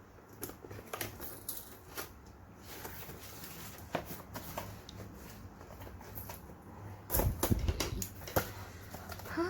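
CD album packaging handled by hand: scattered light taps and clicks, with a louder run of knocks and bumps about seven seconds in.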